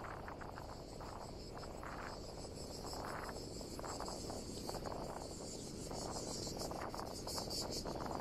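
A chorus of insects, crickets or cicadas, chirping in a steady, fast-pulsing high-pitched band, over low rushing wind and road noise.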